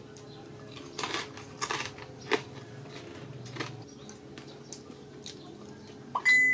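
Mouth crunching and chewing crispy pork belly crackling, a series of crisp crunches and clicks. Near the end comes a short, high, bright ding that rings on briefly.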